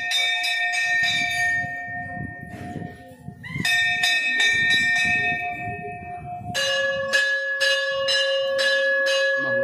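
Hanging brass temple bells (ghanta) rung by hand, struck about three times a second. One bell rings in two runs with a short pause before the middle. About two-thirds through, a second, lower-pitched bell takes over and rings on.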